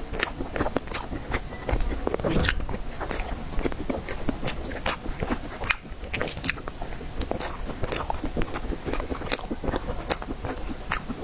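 A person chewing and biting tiger skin roll, a soft sponge-cake roll, with a steady run of many short mouth clicks and smacks.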